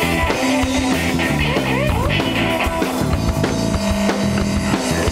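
Rock band playing an instrumental passage: drum kit and electric guitar, with bass, with a few sliding guitar notes.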